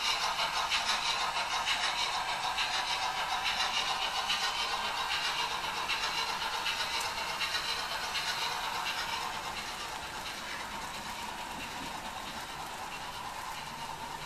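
TT-scale model steam train with passenger coaches running on the layout track: a fast, rhythmic clatter that slowly fades as the train draws away.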